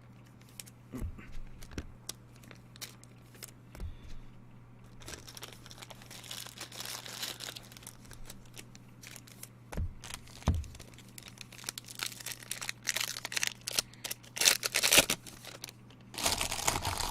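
Plastic wrapping on trading card packs crinkling and tearing as they are opened, with cards shuffled and a few soft knocks on the table; the crackling gets louder in the second half.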